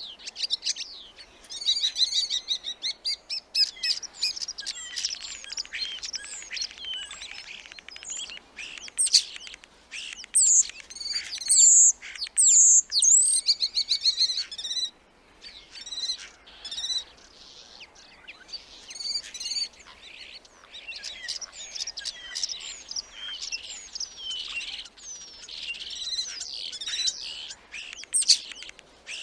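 Starling song: a busy, varied stream of whistles, sliding notes, clicks and chatter, with a brief lull about halfway through.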